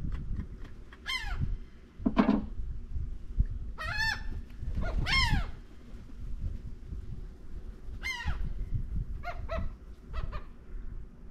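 Bird calls: loud, drawn-out cries that fall in pitch, about a second in, twice around four to five seconds in and again around eight seconds, then a quick run of shorter calls near the end.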